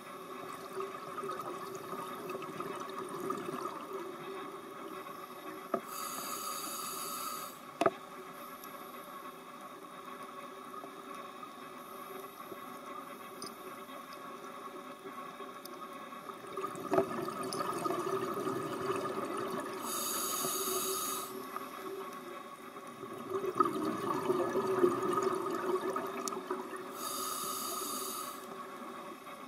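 Underwater ambience of a scuba dive recorded through a camera housing: a steady hiss with the diver's regulator breathing, three bursts of exhaled bubbles spaced several seconds apart, and one sharp click about eight seconds in.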